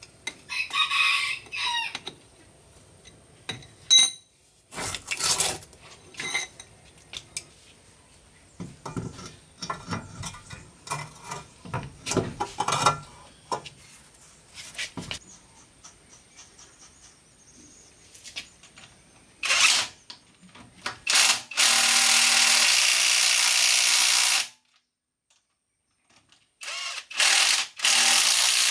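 Metal tools clinking and knocking during work on a pickup's front-wheel-drive parts, then a power tool running loudly in two long bursts of about three seconds each, the second near the end.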